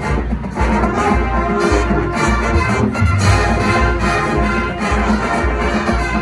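A full marching band playing live: massed brass (trumpets and trombones) over drums, with a steady, strong bass-drum beat.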